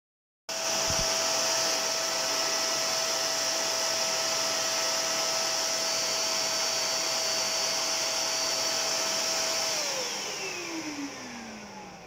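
ATC 600 W bagless vacuum cleaner running: a steady whine over the rush of air that starts abruptly about half a second in. Near the end it is switched off and the motor winds down, its whine falling in pitch as the noise fades.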